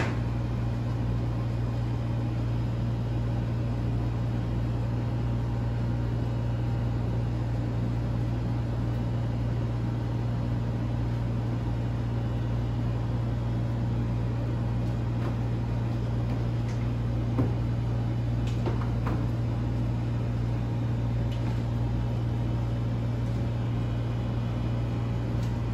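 A steady low mechanical hum, unchanging throughout, with a few faint light taps about two-thirds of the way through.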